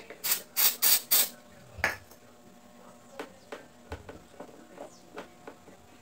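Hand working the seized motor shaft of a Mondial electric fan: four quick, sharp scraping clicks about a third of a second apart, one more shortly after, then fainter scattered clicks. The shaft is jammed in its bushing, which the owner puts down to dirt in the bushing.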